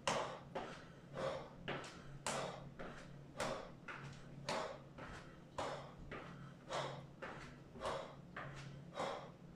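Rhythmic footfalls and breaths of a man doing marching knee raises on a thin exercise mat over tile, about two a second with every other one louder, over a faint steady low hum.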